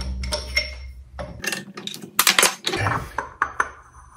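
Metal clinks and knocks of a milling-machine step pulley being handled and shifted on a shop press, with a cluster of sharp ringing knocks about two seconds in.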